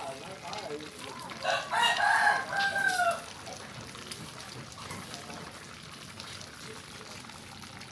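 A rooster crowing once, about a second and a half in: one drawn-out call that drops in pitch at the end, over low background noise.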